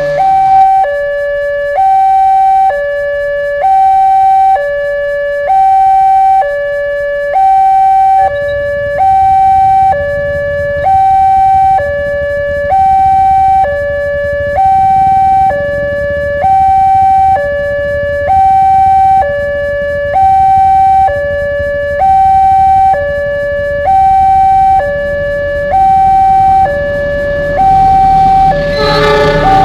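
Indonesian railway level-crossing warning alarm: an electronic two-tone signal alternating high and low, about one high-low cycle every two seconds, sounding while the barrier is down for an approaching train. A low rumble comes in about eight seconds in and grows louder near the end.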